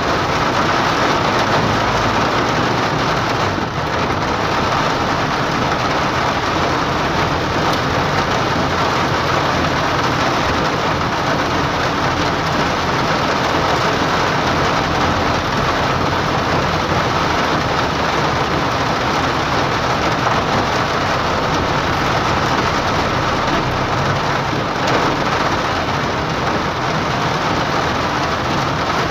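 Hard rain pelting a car's roof and windshield, heard from inside the moving car as a loud, steady hiss, with the car's road noise underneath.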